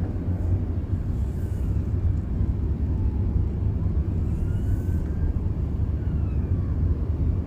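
Car cabin noise while driving: the engine and tyres make a steady low rumble inside the moving car.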